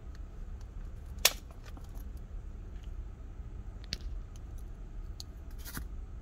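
Clear plastic refill cover of an electric salt and pepper mill twisted open and pulled off: one sharp click about a second in, then a few lighter plastic clicks and taps.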